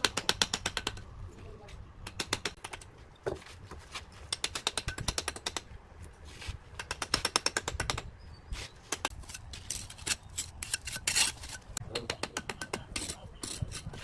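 Steel bricklaying trowel scraping and tapping against bricks and wet mortar in quick runs of sharp ticks, with an occasional single knock.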